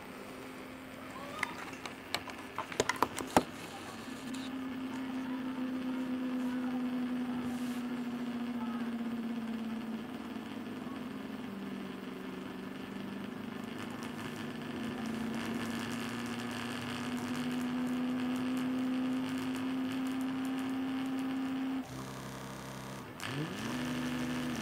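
Stepper motors driven by an Arduino running GRBL through a 3-axis driver board, whining with a steady tone that sags slightly in pitch and then rises again as they turn. Near the end the tone changes in steps and then sweeps up and back down as the motors speed up and slow down. A few sharp clicks come in the first few seconds.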